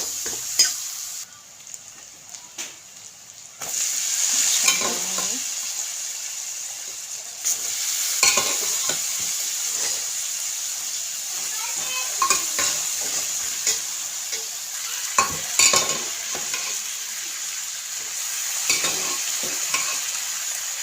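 Onion and spices sizzling in hot oil in a pan, with a spoon stirring and scraping against the pan now and then. The sizzle drops away for a couple of seconds about a second in, then comes back.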